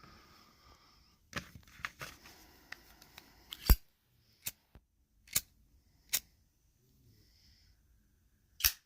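A series of separate sharp clicks and taps, about eight, the loudest a little before the middle: small plastic and metal lighter parts being handled.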